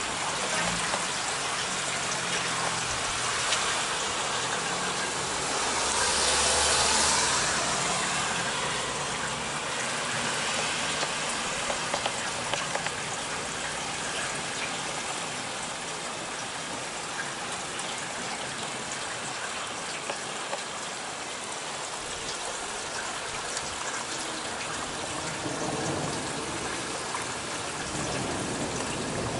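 Heavy thunderstorm rain pouring steadily, swelling louder for a couple of seconds about six seconds in.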